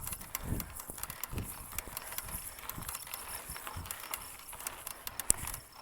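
Bicycle creaking and clicking: an irregular run of sharp clicks with a few low thuds, one click near the end louder than the rest.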